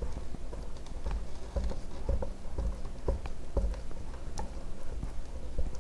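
Silicone spatula stirring thick, sticky rice-flour batter in a stainless steel bowl as hot cooked paste is poured in: irregular soft taps and wet slaps, roughly two a second.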